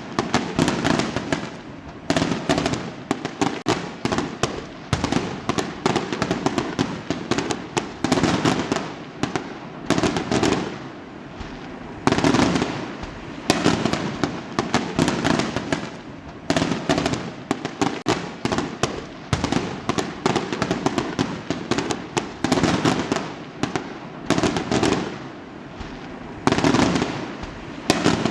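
Fireworks going off in rapid, overlapping volleys: a dense run of sharp bangs, each with a short rumbling echo, and crackling between them.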